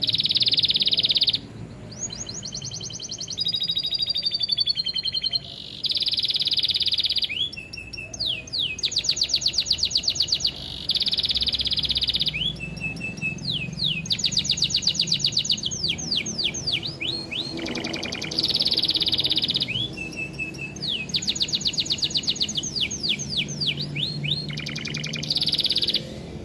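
Domestic canary singing a long, continuous song of fast trills and buzzy rolls that change every second or two, with lovebird-like phrases worked into it (a canary 'filled' with lovebird song).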